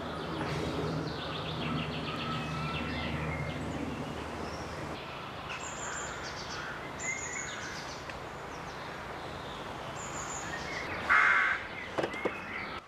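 Wild birds chirping and trilling over a steady outdoor background hum, with a louder, harsh sound about eleven seconds in.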